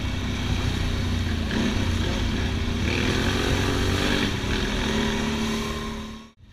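ATV engine running under way along a muddy trail, its pitch rising and falling with the throttle. The sound fades out quickly near the end.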